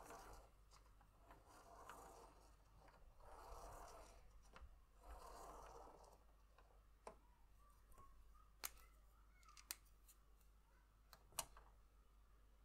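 Faint scratching and swishing of a fineliner pen tip on paper as it is drawn round inside a clear plastic Spirograph gear, in several strokes over the first half. Then a few sharp, light clicks, with the drawing sound gone.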